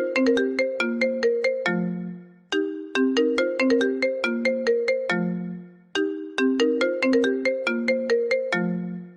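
iPhone ringtone melody looping: a quick run of bright, plucked-sounding notes that ends on a held low note and fades out, then starts again about every three and a half seconds.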